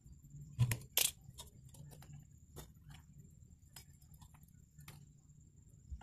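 Light clicks and ticks of a thin copper capillary tube being handled and bent by hand, with two sharper clicks just under a second in and scattered lighter ticks after.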